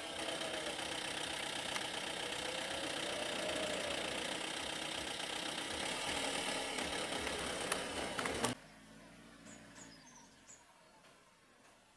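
Vehicle engine idling steadily, then cutting off abruptly about eight and a half seconds in, leaving a much quieter background with a few short bird chirps.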